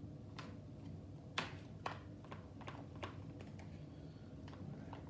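Irregular light clicks and taps of a utensil working through a serving of instant mashed potatoes, about a dozen over a few seconds, over a low steady hum.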